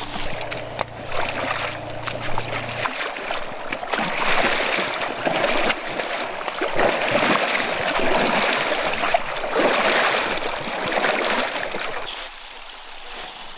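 River water rushing and splashing, rising and falling in surges, fading near the end. A steady low hum runs under it for the first three seconds and cuts off suddenly.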